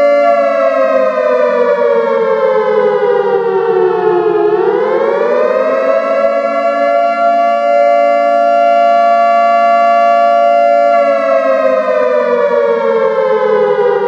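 Siren wailing. Its pitch falls slowly for about four seconds, sweeps back up over a second or so, holds steady for about five seconds, then starts falling again near the end.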